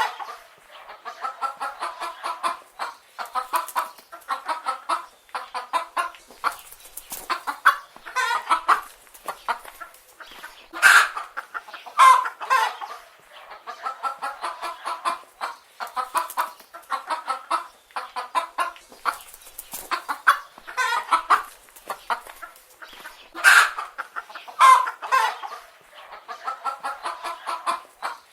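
Flock of chicken hens clucking continuously, with short repeated clucks and louder, sharper squawking calls every few seconds.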